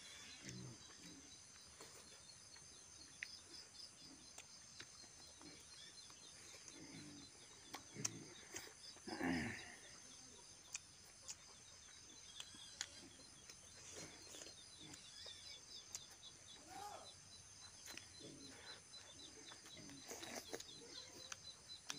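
Quiet eating sounds, small clicks and smacks of chewing and hand-eating rice and meat, over a steady high-pitched chirring in the background that pulses quickly and evenly. One louder short sound stands out about nine seconds in.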